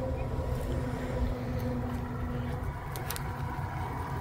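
Portable generator running steadily and quiet, a low even hum, with a couple of light clicks about three seconds in.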